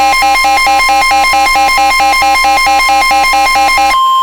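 Emergency Alert System alert tones: a fast repeating electronic warble of several pitches, about four a second, over one steady high tone. The warble stops near the end and the steady tone holds on alone.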